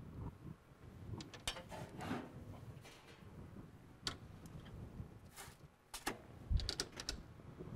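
A skillet being put into a kitchen range's oven: scattered metal clicks and knocks from the pan, rack and oven door, with the loudest, a low thud, about six and a half seconds in.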